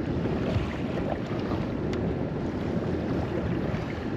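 Wind buffeting the microphone over choppy sea water against a small boat's hull: a steady rumbling noise with no engine tone, and a faint click about two seconds in.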